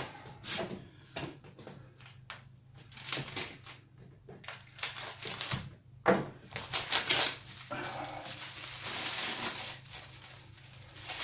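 Unpacking noise: polystyrene packing being handled and shifted with scattered knocks, one sharper knock about six seconds in, then a plastic bag crinkling.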